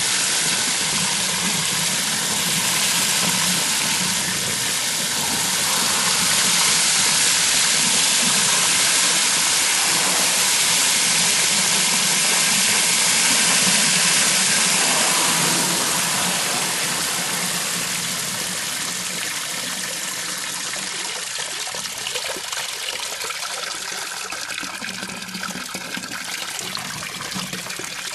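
Garden hose spraying water onto plants, a steady hissing gush. It eases off in the second half and becomes a patchier spatter near the end.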